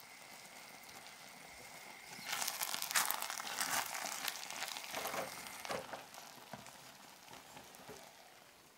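A wooden spatula stirring and fluffing cooked rice in an enamelled cast-iron pot: a crackly rustle with scrapes against the pot. It starts about two seconds in and fades after about six seconds.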